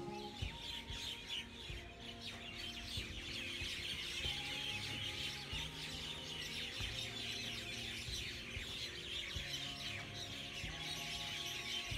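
Many small birds chirping densely and continuously, a busy flock chorus, under soft background music of long held notes that change every second or two.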